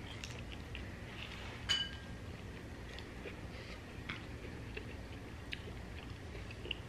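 Quiet table sounds while eating: faint scattered clicks and small clinks, with one brighter clink that rings briefly about two seconds in, over a low steady room hum.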